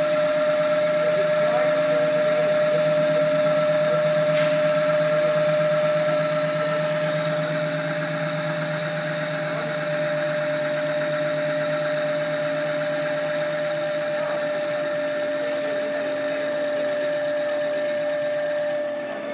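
Lathe spinning a wooden workpiece while a cutting tool peels chips off it: a steady whine with a loud cutting hiss. The hiss drops away near the end.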